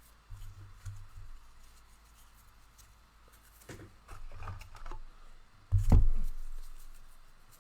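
Handling noise at a table: trading cards and packaging being shuffled and set down, with soft knocks and scrapes and one loud thump about six seconds in.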